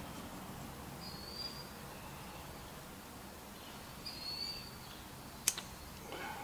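A bird gives short high chirps, about a second in and again around four seconds, over faint background hiss. A single sharp click comes about five and a half seconds in.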